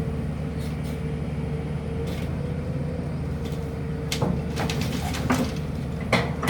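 Heavy diesel engine of earthmoving equipment running steadily, with a steady whine above the rumble. From about four seconds in, a run of sharp knocks and clatters sounds over it.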